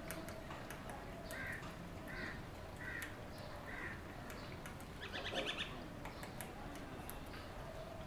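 Fulvous-breasted woodpecker pecking at a tree trunk: a scatter of sharp taps on wood. Birds call in the background, four short notes in the first half, then a louder rapid chattering call about five seconds in.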